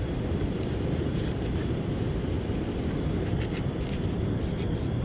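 Steady low rumble of wind on the microphone, with a few faint clicks after about three seconds.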